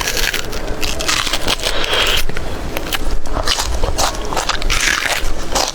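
Close-up eating sounds: a person biting and chewing food, with dense, irregular crunching and wet clicking mouth noises.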